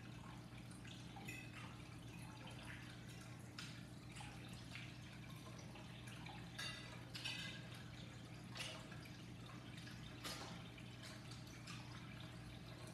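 Close-up wet chewing and lip-smacking from someone eating a forkful of food, with a few short clicks of a fork on a plate, over a faint steady low hum.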